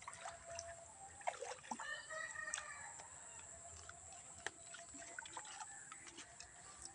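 River water trickling faintly over rocks at the bank, with scattered small clicks and a brief faint call about two seconds in.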